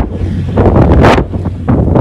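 Wind buffeting the microphone in loud gusts, a rough rumbling roar that swells and drops, with a sharp surge about a second in.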